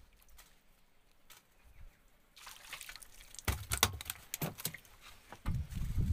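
A small freshly landed fish flapping and slapping on a wooden boat deck, a run of wet knocks and thuds with water splashing and dripping. Near the end a low rumble starts.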